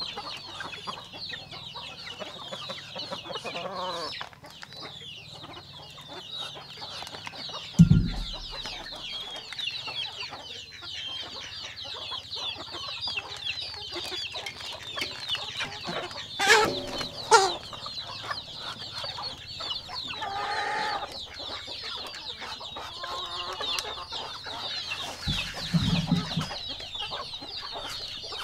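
Chickens clucking and peeping steadily, a dense chatter of high chirps. A dull thump comes about eight seconds in and another near the end, with two sharp knocks around the middle.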